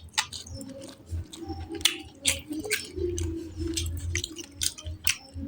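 Close-miked eating sounds: irregular wet clicks and smacks of chewing and lips, many a second.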